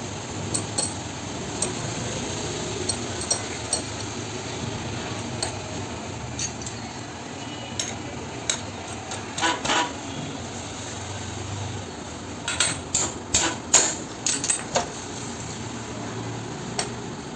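Steel tools clinking and knocking on engine metal as a spanner works a puller to draw the magneto rotor off a motorcycle engine's crankshaft. The clicks are scattered, with a quick run of sharper knocks about two-thirds of the way through.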